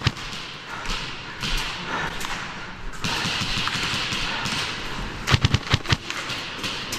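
Airsoft gun firing a short rapid burst of about half a dozen shots, about five and a half seconds in, over the rustle and footsteps of a player moving.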